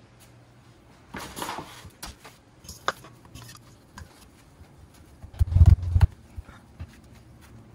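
Kitchen handling sounds on a work surface: a brief rustle and scrape about a second in, a sharp click near three seconds, and a heavy low thump about five and a half seconds in, the loudest sound.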